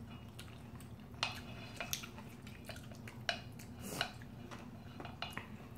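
Wooden chopsticks and a spoon clicking lightly and irregularly against a large stainless steel mixing bowl of bibimbap as it is scooped up, a handful of separate clicks.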